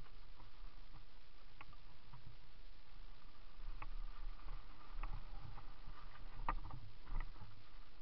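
Mountain bike riding down a snowy forest trail: a steady rumble of tyres and wind, with scattered clicks and knocks as the bike rattles over bumps. The loudest knocks come about six and a half to seven seconds in.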